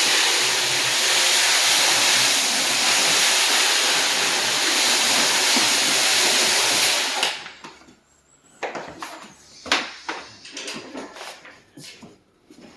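Power sander running steadily between coats of finish, then switched off about seven seconds in, followed by a few scattered knocks and clicks.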